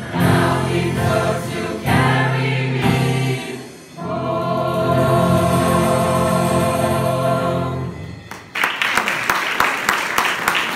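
Choir singing, closing a song on a long held chord that ends about eight seconds in. Audience applause breaks out right after.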